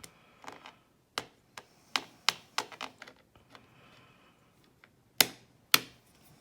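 Small sharp metal clicks and taps as tweezers work the pins out of a Schlage lock cylinder's plug, irregular, about ten over the span, with two louder clicks about half a second apart near the end.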